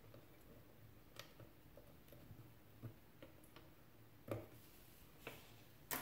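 Near silence with a few scattered faint clicks and light taps from handling a circuit board and soldering iron, the loudest about four seconds in and just before the end.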